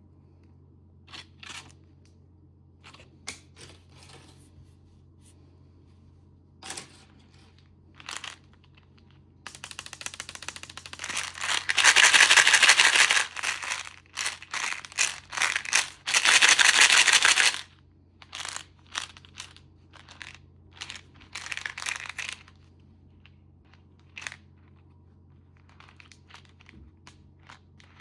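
Plastic candy packaging being crinkled and torn open by hand. Scattered short rustles lead into a long stretch of loud, dense crinkling about a third of the way in, which gives way to lighter rustles again.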